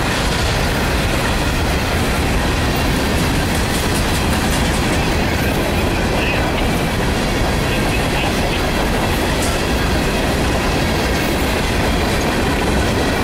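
Empty steel coal hopper cars of a freight train rolling steadily past, their wheels clicking on the rails.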